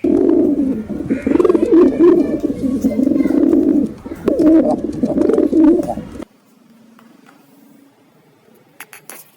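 Pigeons cooing: a run of low, warbling coos that stops abruptly about six seconds in, followed by a few faint clicks near the end.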